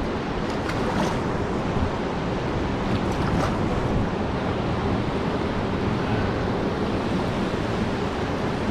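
Steady wash of Pacific surf breaking at a river mouth, mixed with wind on the microphone. A few faint clicks come about a second in and again around three seconds in.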